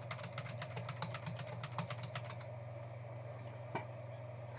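Typing on a computer keyboard: a quick run of keystrokes for about two and a half seconds, then one more click near the end, over a steady low hum.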